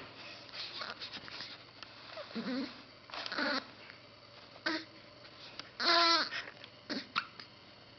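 Two-week-old newborn baby hiccupping, with small grunting noises and one short pitched whimper about three-quarters of the way through, the loudest sound.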